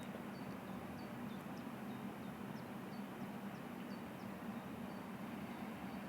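Outdoor ambience: a steady low hum under a wash of noise, with a small bird's short high chirps repeating every half second or so.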